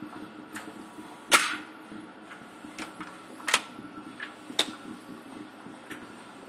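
Sharp metallic clicks and clacks of a semi-automatic pistol being handled and loaded, about seven in all at uneven intervals, the loudest a little over a second in.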